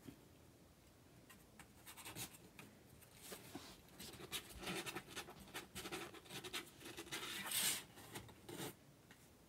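Soft, irregular rustling and scratching on fabric blankets as a young kitten crawls over them, loudest late on.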